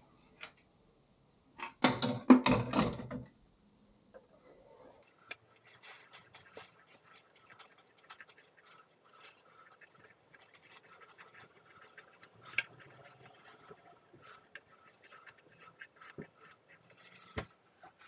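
A brief loud rustle and clatter about two seconds in, then light, irregular scraping, scratching and plastic-bag rustling as hands clear debris and animal droppings out of the exhaust-fan duct opening into a plastic bag taped below it.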